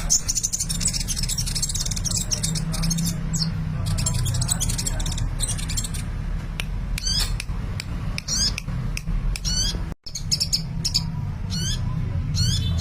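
A sunbird (Indonesian 'kolibri') singing in full voice: rapid high twittering chirps and short trills, some sliding in pitch, over a steady low hum, with a brief break about ten seconds in.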